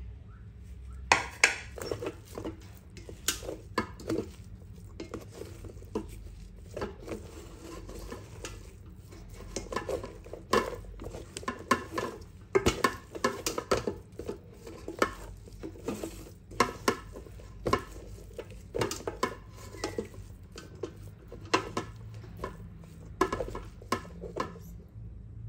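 A utensil stirring and scraping in a metal cooking pot, with frequent irregular clinks against the pot.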